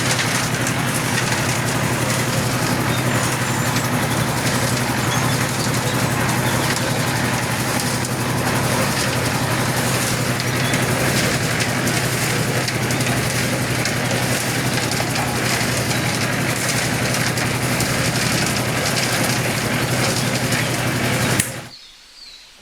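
A small motor running steadily with a low hum and a hiss, cutting off suddenly near the end.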